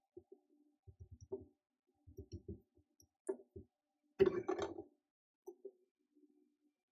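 Wooden spatula knocking against a non-stick frying pan as shredded cabbage is stirred, a series of soft taps, then a glass lid set down on the pan with a louder clatter about four seconds in.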